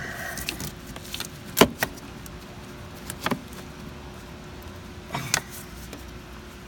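Small parts and tools being handled in a car's engine bay: a few sharp clinks and knocks, the loudest about one and a half seconds in, then pairs around three and five seconds in, over a faint steady hum.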